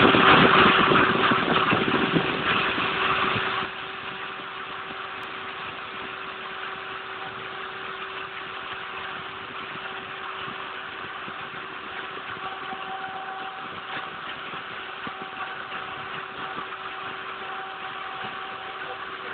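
Home-made CNC machine running while etching a mirror: a loud, harsh noise for about the first four seconds drops suddenly to a quieter, steady hum with a held tone.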